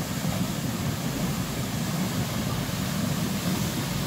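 Steady rush of churning whitewater, a heavy low rumble with a hiss above it.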